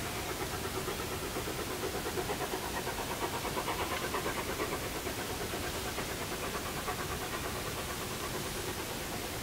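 Distant narrow-gauge steam locomotive chuffing in a fast, even beat, the exhaust beat loudest a few seconds in, over a steady hiss.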